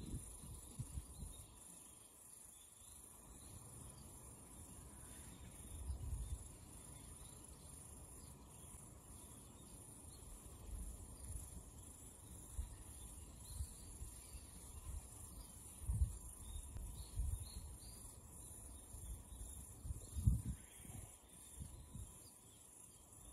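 Steady, high-pitched chirring of insects outdoors, with irregular low rumbles now and then, strongest about six, sixteen and twenty seconds in.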